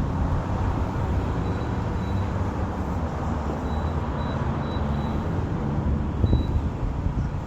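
Steady low outdoor rumble, with short faint high chirps now and then.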